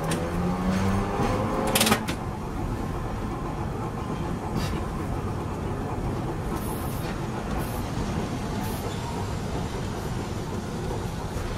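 Vintage Hiroshima Electric Railway 570-series tram running, heard from the driver's cab. A motor whine rises in pitch over the first two seconds as the tram picks up speed and ends in a loud click. After that comes a steady rumble of wheels on rails, with a few faint clicks.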